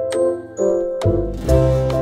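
Background music: a light keyboard tune with a steady beat, a deep bass note coming in about a second in.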